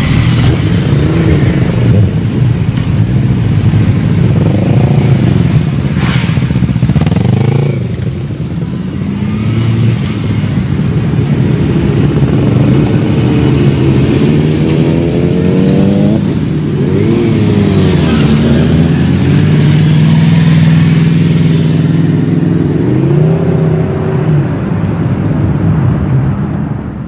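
Several sportbike engines revving and accelerating away one after another, the pitch rising and falling with each throttle blip and gear change. The sound fades out at the very end.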